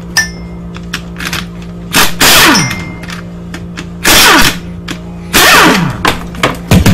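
Impact wrench spinning bolts out of a Subaru EJ253 cylinder head in three short bursts of about half a second each, the pitch falling at the end of each burst, with light metal clicks between them.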